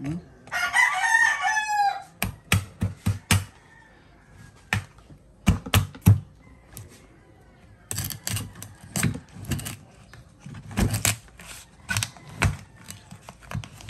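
A rooster crows once in the first two seconds. After that comes a series of sharp knocks in uneven bunches: a large knife being driven through a spiny lobster's hard shell and striking the wooden chopping block beneath.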